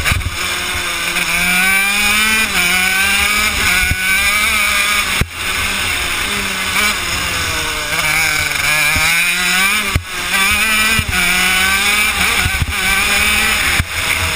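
Honda CR80 single-cylinder two-stroke engine of a shifter kart at race pace, heard from on board. Its pitch climbs and falls again and again as the revs build and drop through the corners, with a few brief drops in the sound.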